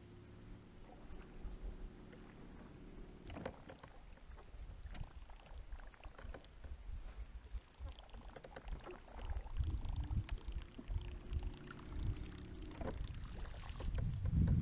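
Electric bow-mounted trolling motor humming steadily. It stops with a click about three seconds in and hums again from about ten to thirteen seconds in, over low water noise against a bass boat's hull, with a few knocks.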